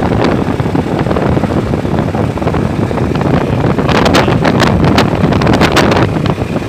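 Heavy wind buffeting on the microphone of a moving motorcycle, with the ride's engine and road noise underneath. A run of sharp crackles comes between about four and six seconds in.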